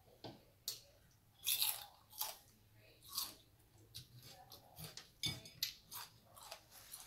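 A person chewing raw celery: irregular crisp crunches from the mouth as the stalk is bitten and chewed.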